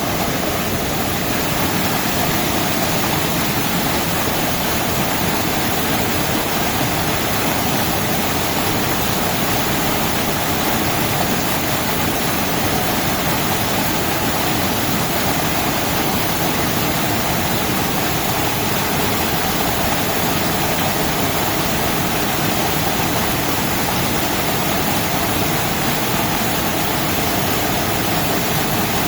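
Heavy rain pouring down steadily, a loud, dense and even hiss.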